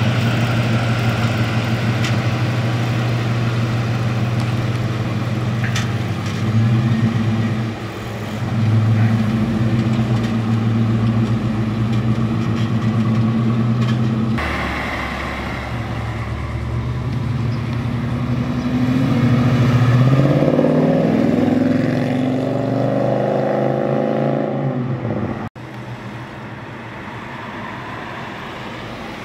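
Fuel-injected LS1 V8 of a 1970 Pontiac GTO running at low speed with a deep rumble and two short revs. After a cut it accelerates away, its pitch rising for several seconds. After another cut it is heard more quietly.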